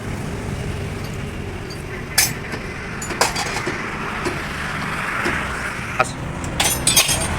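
A few sharp metallic knocks and clinks, twice in the first half and several close together near the end, over a steady low rumble of vehicle engines and traffic.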